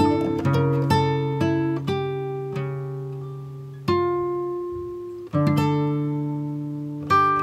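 Background music: acoustic guitar plucking slow notes, with a chord struck about four seconds in and another a second later, each left to ring and fade.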